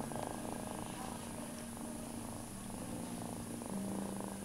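Domestic cat purring steadily and loudly, held in the arms and cuddled close to the microphone.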